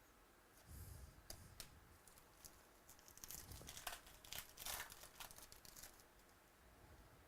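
Faint crinkling and rustling of trading-card pack wrappers and cards being handled, with small clicks, busiest from about halfway through.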